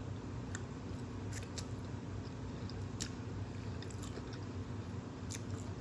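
A person chewing food, with scattered faint clicks from the mouth, over a steady low hum.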